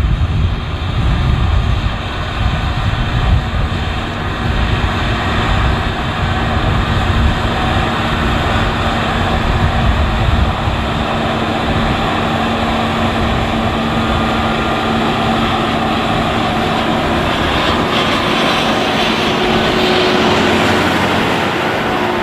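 Large farm tractor's diesel engine running steadily, a constant drone with heavy low rumble that eases a little about halfway through.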